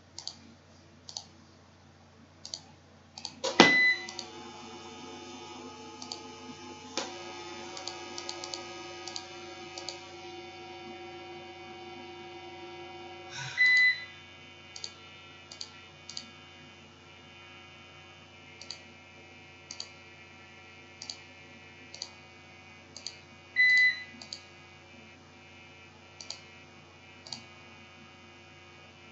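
Computer mouse clicks, scattered one or two at a time, with three short high-pitched beeps about ten seconds apart, over a faint steady hum.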